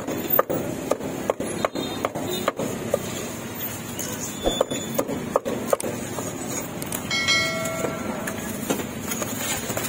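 Cleaver chopping roasted duck on a thick wooden chopping board: a run of sharp knocks, several in the first three seconds and another group around five seconds in, over steady street-stall background noise.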